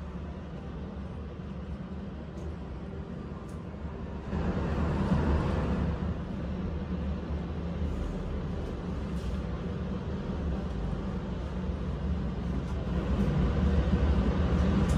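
A low, steady rumble of background noise, like distant traffic, that grows louder about four seconds in and again near the end.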